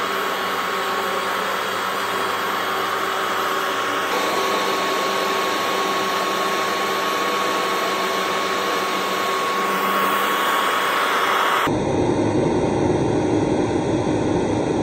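Upright carpet shampoo cleaner running, its suction motor making a steady whir with a thin whine, drawing dirty, foamy water up into its recovery tank. Near the end the sound turns lower and rougher.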